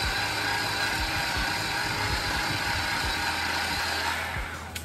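Worx WG323 20V battery-powered chainsaw running steadily on the final back cut through a small tree trunk, with an even whine; it dies away about four seconds in.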